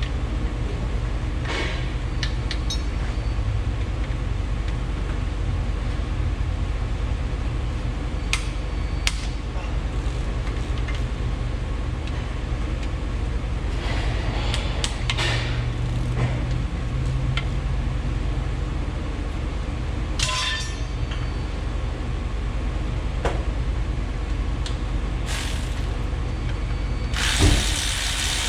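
Scattered metallic clicks and clinks of hand tools working on transmission bolts, over a steady low hum. A knock comes near the end, followed by a louder hiss.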